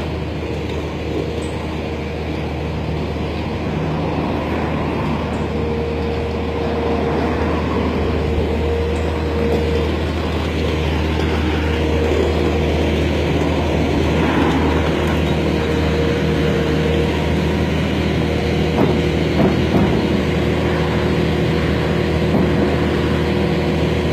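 A single-drum road roller's diesel engine running steadily as the roller drives up. It grows gradually louder as it comes closer.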